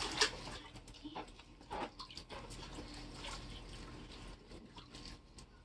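Water splashing and sloshing in an inflatable paddling pool as children move about in it, with the sharpest splash just after the start and softer, scattered splashes after that.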